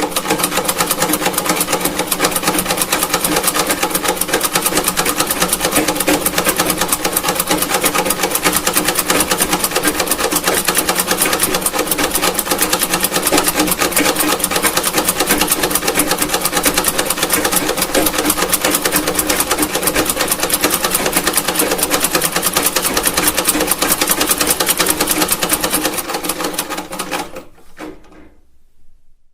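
Antique sewing machine running at a steady speed, its mechanism making a rapid, even clatter; near the end it slows and stops.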